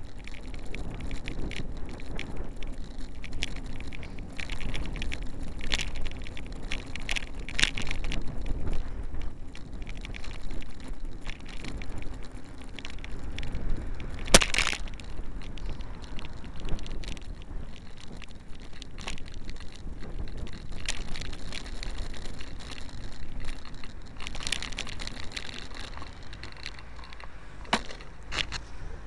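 Riding noise from a camera mounted on a bicycle: low wind rumble and road noise, with frequent small clicks and rattles as the bike goes over the wet street. There is one sharp knock about halfway through.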